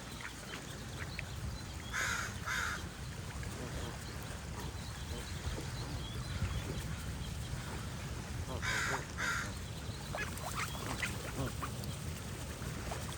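Waterfowl calling among smaller birds. A pair of loud, hoarse calls comes about two seconds in and another pair near nine seconds, with scattered short chirps and a steady low rumble throughout.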